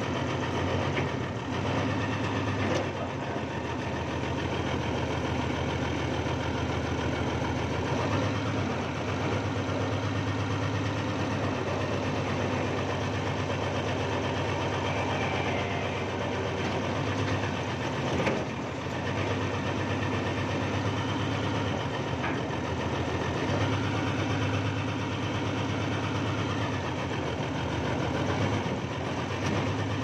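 Old backhoe's diesel engine running from inside the cab, its load swelling and easing every few seconds as the hydraulic levers are worked. A few sharp knocks, the clearest about 18 seconds in.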